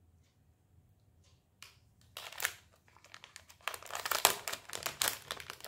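Wrapping crinkling as it is handled. It starts with a few faint clicks, then grows into denser, louder crackling from about a third of the way in.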